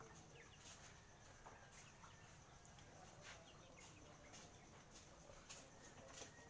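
Near silence: faint outdoor background with scattered light ticks.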